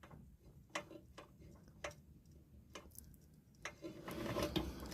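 Light hammer taps driving a pin out of a pop-up camper's roof-lift crank assembly: about five sharp taps, unevenly spaced. Near the end comes a longer stretch of scraping or rustling.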